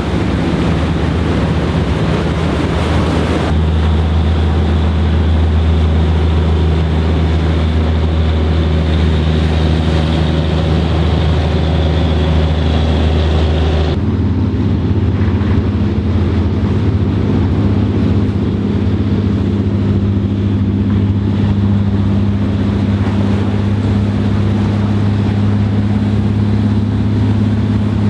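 Steady low engine drone with a strong hum, its pitch shifting abruptly about three seconds in and again about fourteen seconds in.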